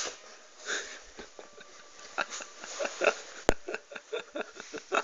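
A person's stifled giggling: short breathy bursts through the nose, coming faster toward the end. One sharp click about three and a half seconds in.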